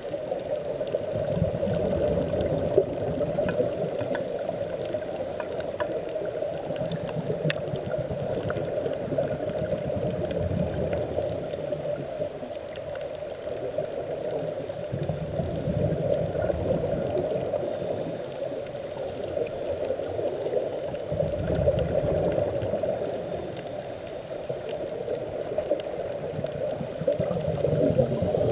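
Scuba divers' exhaled bubbles from their regulators, heard underwater as a gurgling rush that swells and fades every five or six seconds over a steady muffled hum.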